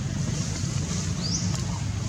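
Steady low wind rumble on the microphone, with a short high chirp rising in pitch about one and a half seconds in.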